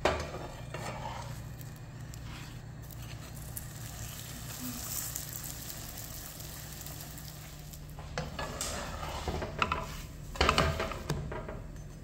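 Stuffed flatbread frying in a nonstick pan with a faint steady sizzle. A slotted spatula scrapes under it and turns it at the start, then scrapes and taps against the pan in a cluster near the end, loudest in the last two seconds.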